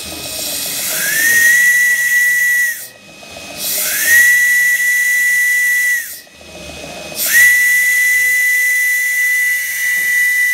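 Brass steam whistle on a scratch-built 6-inch vertical model boiler blown three times by hand, each blast with a hiss of steam. Each blast bends up in pitch at the start and then holds one shrill steady note. The last blast is the longest.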